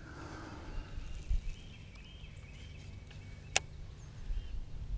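Faint bird chirps over a low outdoor rumble, with one sharp click about three and a half seconds in and a soft thud near the start.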